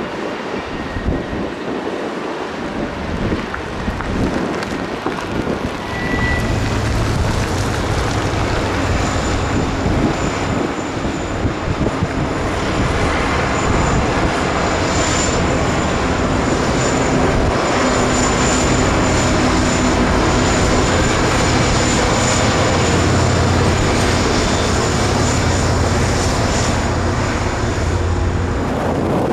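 Diesel locomotives of a freight train running past, a steady low engine drone that comes up about six seconds in and holds, with wind buffeting the microphone.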